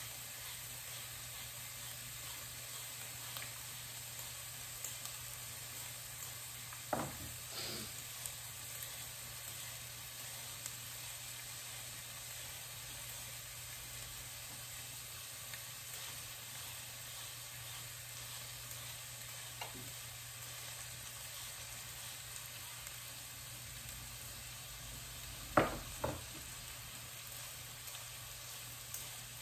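Diced onion and celery sizzling in a pot over medium heat, a quiet, steady hiss. A few light clicks, and near the end two sharp knocks, the loudest sounds.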